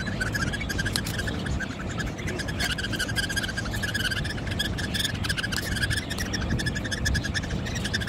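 Budgerigar chick calling: a fast, continuous run of high chirps that grows stronger about two and a half seconds in.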